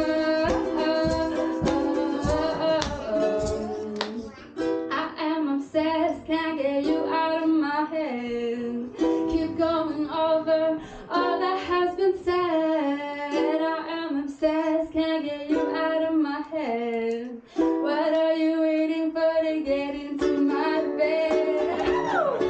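A woman singing a melody live, with gliding, held notes, accompanied by a plucked ukulele, in a small room.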